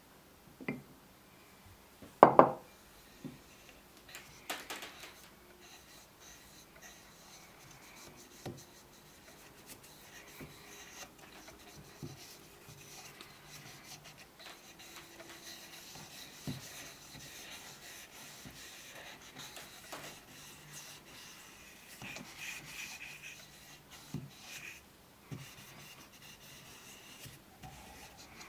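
Hands and a cloth rubbing over the wooden body and horn of an old wooden hand plane, a soft continuous scuffing. A single sharp knock about two seconds in is the loudest sound, with a few smaller wooden clicks later on.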